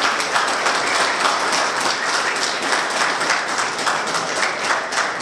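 Audience applauding: many people clapping at once, a dense, steady clatter.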